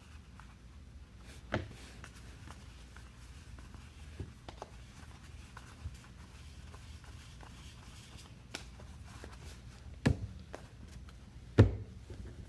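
A few sharp taps and clicks of trading cards being handled on a table, the loudest two near the end, over a low steady room hum.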